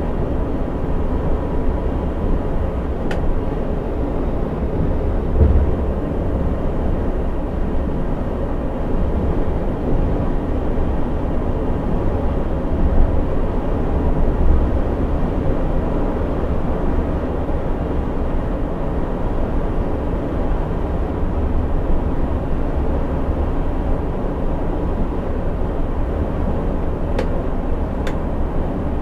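Coach bus at highway cruising speed heard from the driver's cab: a steady low engine and road rumble. A faint click comes about three seconds in and two more near the end.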